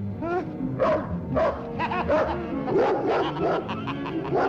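Dog barking repeatedly, about two barks a second, set on a man by its owner's attack command, over background music.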